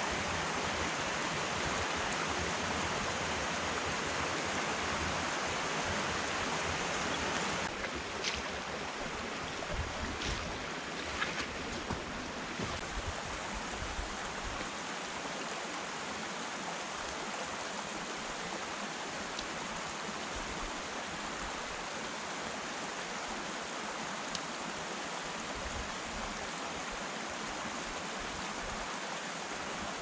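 Small woodland brook running: a steady rush of water that drops a little in level about eight seconds in, with a few faint clicks over the following few seconds.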